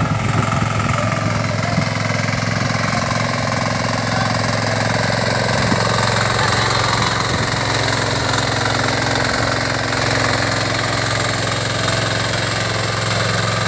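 Tractor engine running steadily while ploughing a field, an even low drone.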